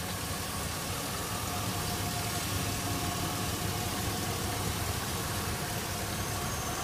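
2002 Chevy Silverado 1500HD's 6.0-litre Vortec V8 idling steadily, heard from right over the open hood, with a faint steady whine above the rumble. It runs smoothly, "like a Singer sewing machine."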